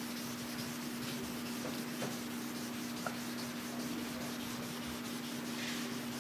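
Hand wet-sanding of a car's clear coat with a sanding block: a soft, steady rubbing of fine wet abrasive paper on the painted panel, cutting the gloss and texture flat before buffing. A steady low hum runs underneath.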